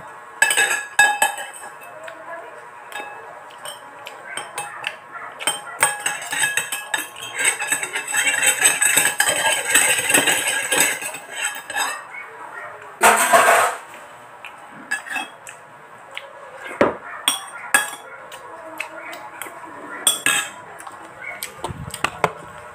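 Metal spoon and fork clinking and scraping against a ceramic bowl while eating, as a run of irregular sharp clinks, busiest in the middle. One louder burst of noise comes a little past the middle.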